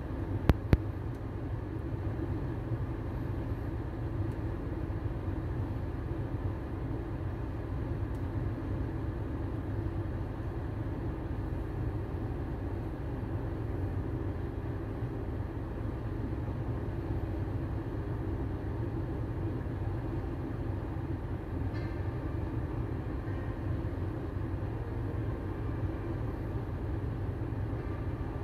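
Steady road and engine noise inside a moving car's cabin, a continuous low rumble with hiss. Two sharp clicks sound about half a second in.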